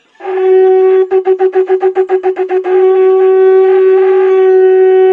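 A blown horn sounding one long note, loud and steady; for a couple of seconds near the start the note pulses rapidly, about seven beats a second, before it is held steady again.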